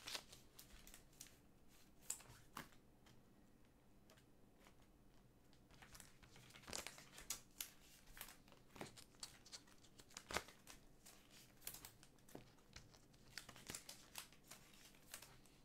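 Faint crinkling and light clicks of trading cards being handled and set down, sparse at first and more frequent in the second half.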